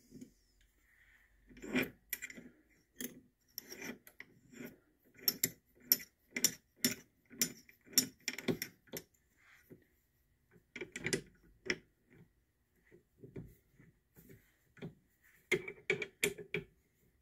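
The chuck of a Mastercraft drill press is turned by hand to seat and tighten a drill bit, giving a run of short metallic clicks and rasps, about two a second, with pauses. The press is not running.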